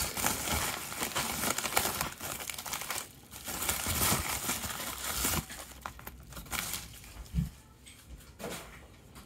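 USPS Priority Mail padded flat rate envelope crinkling and rustling as it is handled and opened, busy for the first half and then quieter, with a short low thud about seven seconds in.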